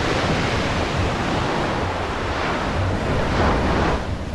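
Ocean surf breaking on the shore, rising and falling in a few surges, with wind rumbling on the microphone.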